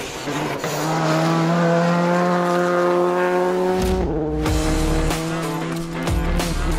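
Rally car engine running at high revs, its note held steady for a few seconds. After that comes lower rumbling, with the pitch falling a couple of times. Music plays underneath.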